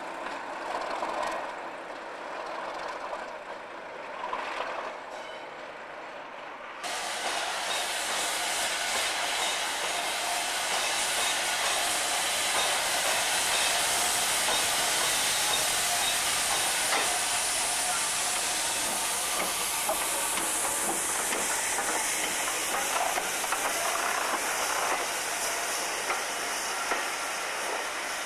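A Class 37 diesel locomotive running quietly. About seven seconds in it gives way to an LNER B1 4-6-0 steam locomotive passing close with a loud, steady hiss of steam, its coaches then rolling by.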